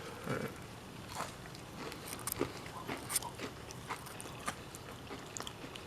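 Someone chewing a piece of breaded crappie: irregular small crunches and crackles.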